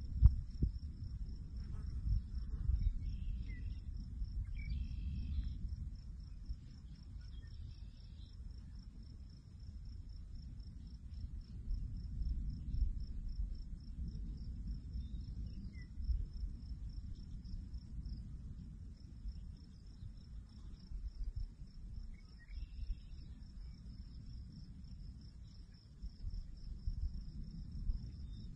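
Uneven low wind rumble, with a knock just after the start, under a steady, evenly pulsed high insect trill. A few short bird chirps come through, mostly in the first eight seconds and again near the end.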